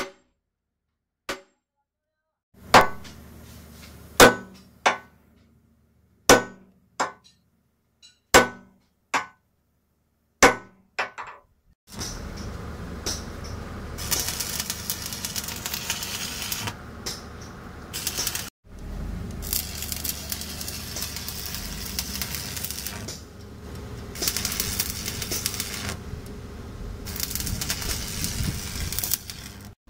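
A sledgehammer strikes the steel wedge lock of a jaw crusher's jaw plate: about a dozen sharp metal blows at uneven intervals, each ringing briefly. From about twelve seconds in, a stick welder's arc sizzles and crackles in stretches of a few seconds with short breaks, welding a lifting plate onto the worn jaw plate.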